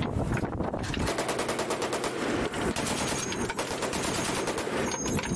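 M2 .50-calibre heavy machine gun firing in rapid, sustained automatic bursts, a fast even stream of shots that begins about a second in.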